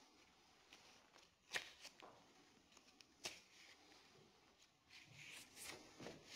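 Near silence: room tone with a few faint short clicks, the clearest about one and a half seconds and three seconds in, and a soft rustle near the end.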